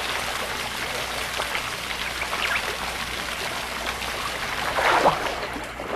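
Moving water, a steady splashing and trickling with a louder surge about five seconds in.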